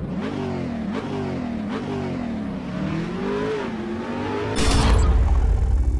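Car engine accelerating hard, its pitch climbing and dropping sharply twice as it shifts up, then rising and easing off again. About four and a half seconds in, a deep boom comes in and is the loudest sound.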